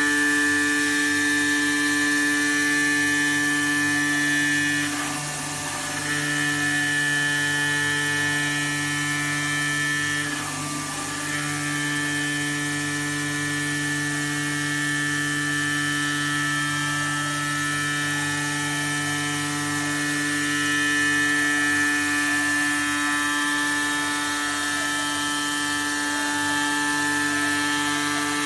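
AOKE DCZ76 flatbed digital cutting machine running as it cuts 20 mm EVA foam: a steady mechanical whine of several fixed pitches, briefly dipping about five and ten seconds in.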